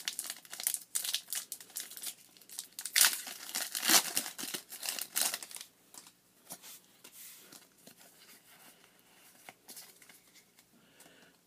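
Foil wrapper of a Pokémon TCG booster pack crinkling and tearing as it is opened by hand, loudest in the first half. It then gives way to quieter handling with faint light ticks.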